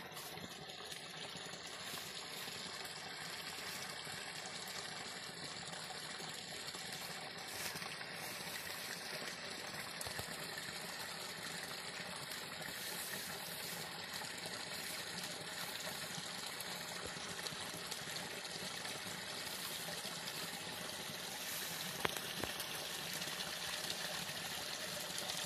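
Shallow forest stream trickling steadily through fallen leaves and around a log, with one brief sharp click near the end.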